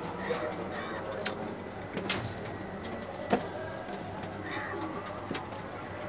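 Domestic pigeons cooing in a loft, with a few sharp knocks or taps scattered through, the loudest about two seconds and just over three seconds in.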